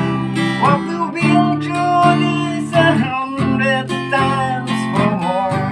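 A song: acoustic guitar strummed in chords, with a voice singing a melody over it.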